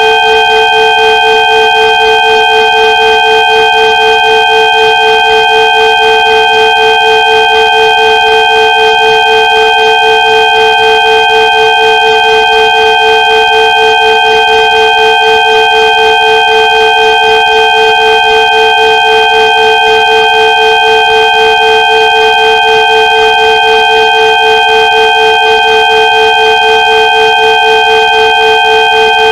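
Electronically generated 'healing frequency' tones: a steady chord of several pure tones, from a mid hum up to a high whistle, held unchanged with a slight even wavering in loudness.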